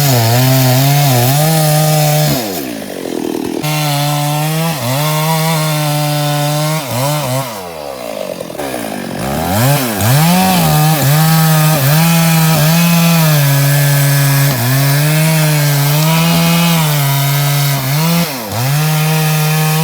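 Chainsaw engine running at high revs while cutting wood, its pitch wavering and sagging under load. It drops sharply and revs back up about two and a half seconds in and again around eight seconds.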